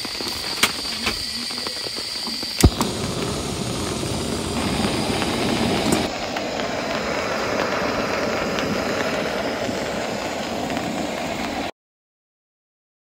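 Remote-canister camp stove on butane: gas hissing with a few sharp igniter clicks, the loudest about two and a half seconds in as the burner lights, then the burner running with a steady hiss that cuts off suddenly near the end.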